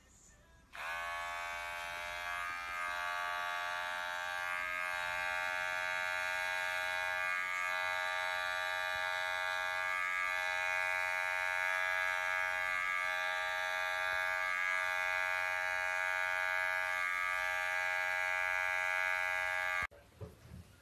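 Electric pet hair clippers running with a steady buzz. The motor switches on about a second in, its pitch rising briefly as it spins up, with small dips every couple of seconds, and it cuts off suddenly near the end.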